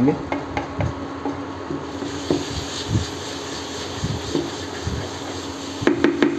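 Wooden spatula scraping and knocking irregularly against a non-stick frying pan as chopped tomatoes and onion masala are stirred, over a steady hiss of the frying and a faint steady hum.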